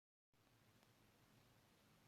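Near silence: after a split second of dead silence, only the recording's faint hiss and low hum.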